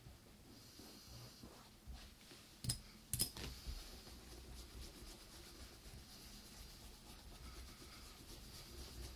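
Faint rubbing on a leather boot during conditioning or polishing, with two light knocks about three seconds in.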